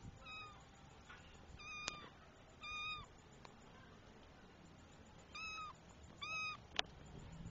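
Kitten meowing, five short high-pitched meows spaced over a few seconds, two of them close together in the second half. A sharp click sounds near the end, the loudest single moment.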